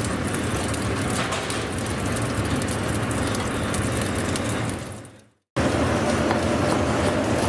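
Commercial kitchen background noise: a steady mechanical hum with small clicks and clatter. It fades out about five seconds in and comes back after half a second of silence.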